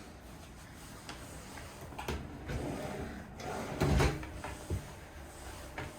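Faint knocks and rubbing from a bathroom door or vanity cabinet being handled, with the loudest knock about four seconds in.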